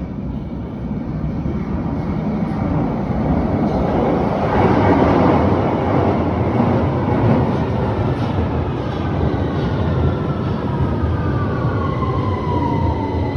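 London Underground tube train running with a loud rumble, louder for a few seconds around the middle. From about two-thirds of the way through, a whine falls steadily in pitch, and a steady high tone joins near the end.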